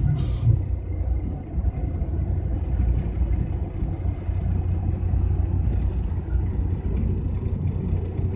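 Engine and road noise of a GAZelle van at cruising speed, heard from inside the cab: a steady low rumble.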